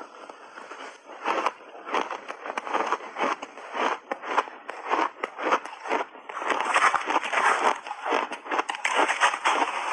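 Crunchy chewing of a mouthful of shaved ice, close to the microphone: a dense, irregular crackle of ice being crushed between the teeth, getting louder about two-thirds of the way through.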